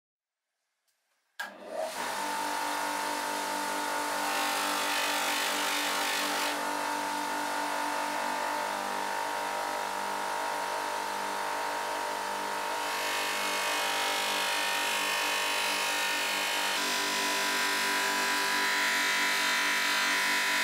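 Bench polishing machine running with a buffing wheel spinning, a steady motor hum with a hiss from the steel axe head being pressed against the wheel to polish it. The sound begins abruptly about a second and a half in, and the hiss grows and eases a few times as the blade is worked on the wheel.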